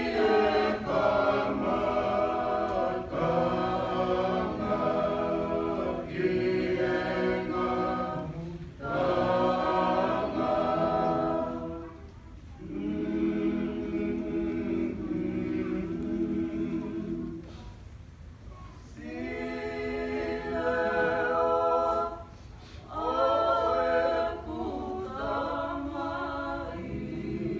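A choir of men and women singing together unaccompanied, in sung phrases of several seconds with short pauses between them.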